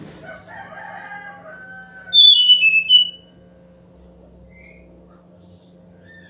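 Brown-chested jungle flycatcher (SRDC) song: a loud phrase of clear, high whistled notes stepping down in pitch, about a second and a half long, followed later by two faint short notes. Just before it, a lower, drawn-out call with several pitches.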